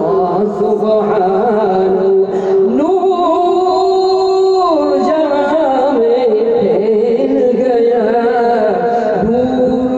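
A man's voice chanting a naat, an Urdu devotional poem, unaccompanied in long, drawn-out melodic phrases; about three seconds in, a note slides up and is held for about two seconds before the melody winds on.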